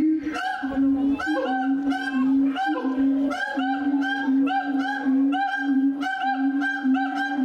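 Siamang calling: a rapid, unbroken series of loud pitched calls, about two a second.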